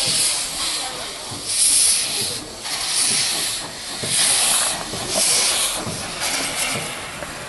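Small steam tank locomotive approaching slowly, its steam hissing out in strong bursts about once a second, in time with the cylinder strokes.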